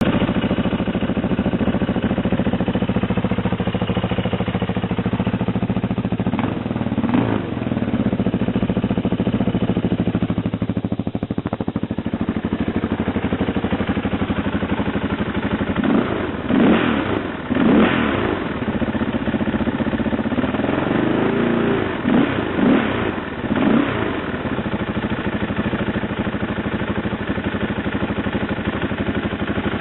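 KTM LC4 640 single-cylinder four-stroke engine breathing through a full Akrapovic titanium exhaust, idling with a steady thump. It is blipped several times, briefly rising and dropping back: twice about a third of the way in, then a quick series of revs in the second half.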